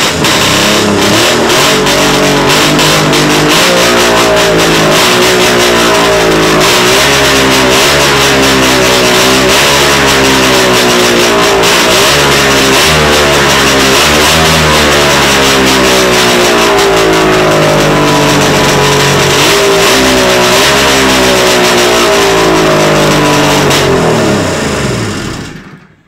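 1972 Ski-Doo Blizzard 797 race sled's 797 cc two-stroke engine running loud, revved up and down again and again. Near the end it is shut off and winds down to a stop.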